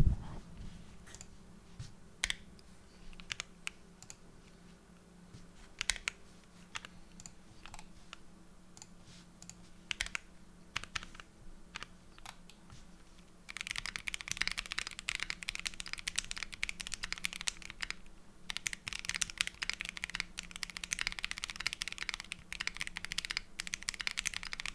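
Mechanical keyboard with tactile switches (KTT Matcha housings with Akko Pro Blue Cream V3 stems) being typed on: scattered single keystrokes at first, then fast continuous typing from about halfway through, with a short break in between.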